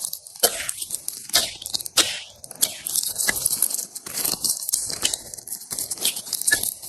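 Slime being squeezed and pressed by hand, giving an irregular run of crackles and crunchy pops.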